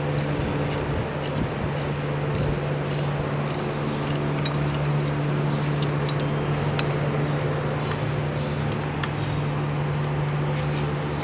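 A steady low machine hum with a constant pitch, overlaid by scattered sharp clicks that come several a second in the first few seconds and more sparsely after.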